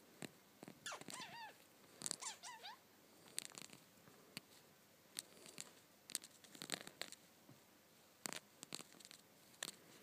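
Budgerigars close to the microphone: scattered sharp clicks and taps, as from beaks pecking at the camera, with two short bursts of quick, wavering budgie chirping about one and two seconds in.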